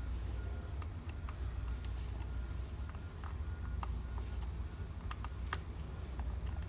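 Scattered light clicks and taps from a Phillips screwdriver and the plastic parts of a Huina 583 RC wheel loader being handled while a wheel screw is removed, irregular and a few per second, over a steady low hum.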